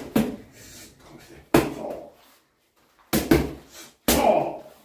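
Boxing gloves punching focus mitts: about six sharp smacks, several in quick pairs as one-two combinations.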